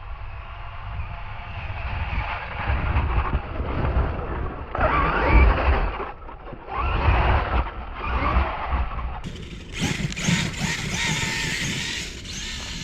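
Kyosho Foxx VE brushless electric RC truck on paddle tires driving through snow: the motor's whine surges in several bursts of throttle, with a broad hiss in the last few seconds.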